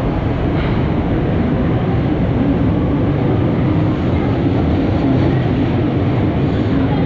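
Paris Metro MF67 steel-wheeled metro train running, a loud steady rail rumble with a faint hum over it.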